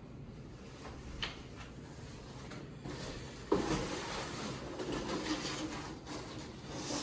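Roof rack parts being handled and moved about: a light click about a second in, then a sharper knock about three and a half seconds in, followed by scraping and rustling handling noise.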